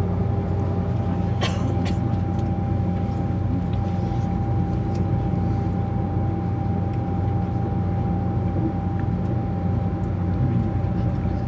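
Cabin noise inside a moving ICE 3 high-speed train: a steady low rumble of the running train with a constant high whine over it. A short click about a second and a half in.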